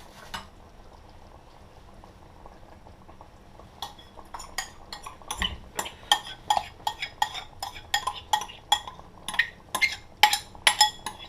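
A metal spoon clinking and scraping against metal cookware, about two to three sharp ringing clinks a second, starting about four seconds in, as sauce ingredients are spooned and stirred in.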